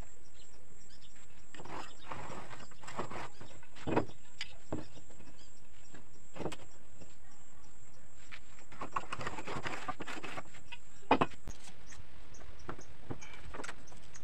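Carpenter's pencil scratching lines onto a plywood sheet along a metal straightedge, in two stretches of a second or two, with a couple of short knocks as the straightedge or tape measure is set on the board.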